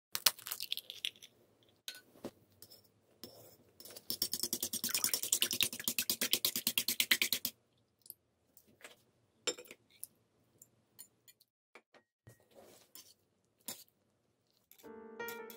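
Eggs being beaten in a ceramic plate: fast, steady clicking of a utensil against the plate for about three and a half seconds. Then scattered soft clicks as tofu cubes are added and stirred in with chopsticks, and piano music comes in near the end.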